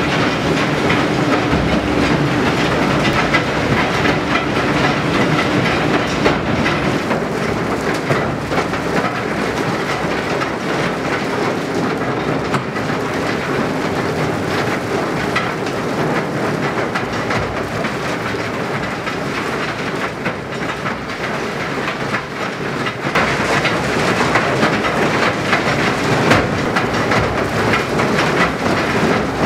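Rail-Veyor train of electrically driven two-wheeled railcars loaded with ore, running on light-rail track: a loud, steady rattling clatter of wheels and cars, growing a little louder about two-thirds of the way through.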